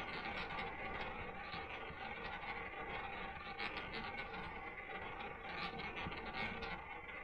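Double-zero roulette wheel spinning: a faint, steady rolling rumble.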